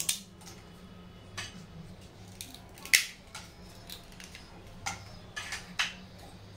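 Cinnamon bark being snapped by hand and dropping onto cloves in a dry non-stick frying pan: a scattered series of sharp cracks and clicks, about eight in all, the loudest about three seconds in.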